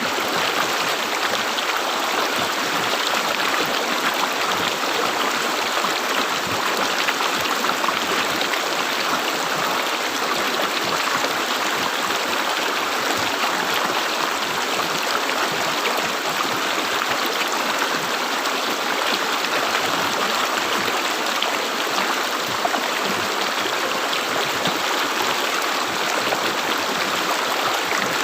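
River water gurgling steadily, an unbroken rushing flow.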